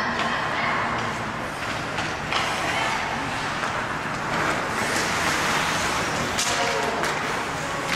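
Ice hockey rink ambience during a game: a steady wash of skating and crowd noise, with a few sharp clacks.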